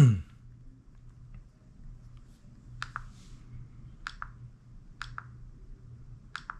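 An iPod classic's click-wheel buttons are pressed four times, about once a second. Each press is a short, sharp double click, heard over a faint steady low hum.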